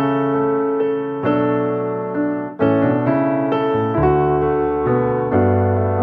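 Background music: a keyboard playing slow, sustained chords, with a new chord or note about every second.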